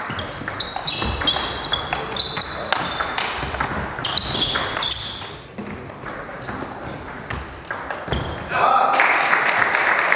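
Table tennis rally: the celluloid ball clicking quickly off bats and table, with short high squeaks of shoes on the wooden hall floor. Near the end a loud wash of crowd noise rises as the rally ends.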